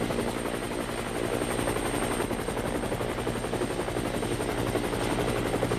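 Helicopter rotor beating in a fast, steady chop, with a constant drone underneath.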